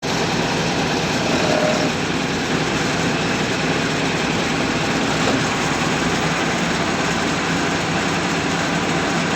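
Combine harvester running steadily: an even, unbroken engine and machinery din.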